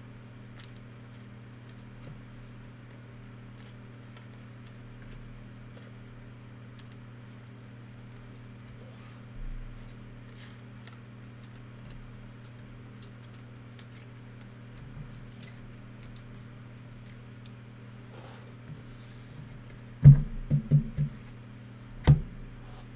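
Trading cards being handled: faint scattered light clicks and rustles over a steady low electrical hum. Near the end come a quick run of loud thumps and then one more, knocks on the table or microphone.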